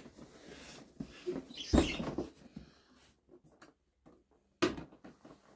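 Cardboard drone box being handled and worked open by hand: scratching and rubbing on the cardboard, with a few knocks, the loudest about two seconds in and another near the end.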